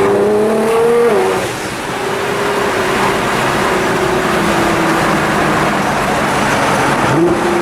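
Nissan GT-R's twin-turbo V6 through a titanium exhaust, heard from inside the car: revs climb until about a second in, drop sharply at a gear change, then the engine holds a steady, slowly falling note before the revs rise quickly again near the end.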